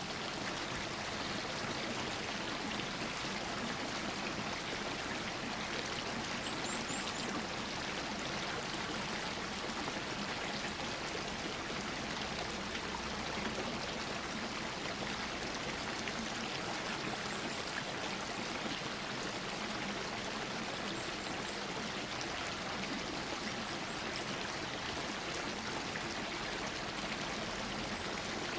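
Small stream flowing steadily, water running and trickling.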